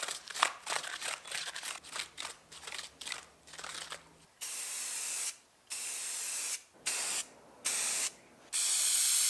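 A paint brush scrubbed back and forth over a PVC sign in quick short strokes, dry-brushing a faux wood grain, for about four seconds. Then an aerosol spray paint can hisses in five bursts, each about half a second to a second long, with short pauses between.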